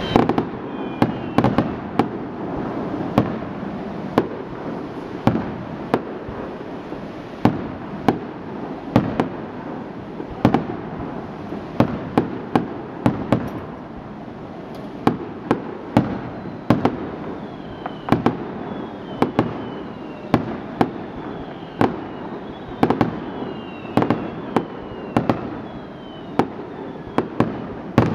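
Aerial firework shells bursting overhead in a rapid, irregular series of sharp bangs, about one or two a second, with a few short falling whistles high up between them.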